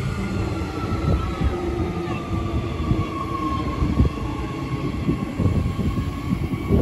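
Queensland Rail SMU 260-class electric train moving along the platform. A steady motor whine sinks slightly in pitch over the low rumble and occasional knocks of its wheels on the rails.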